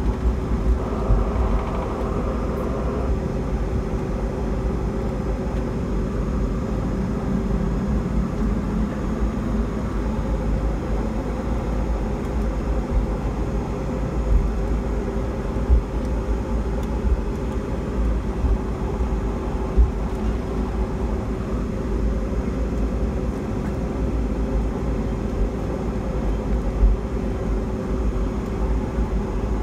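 Cabin noise of a Boeing 757-200 taxiing: the engines running with a steady hum and several held tones over a low rumble, with a few short low thumps along the way.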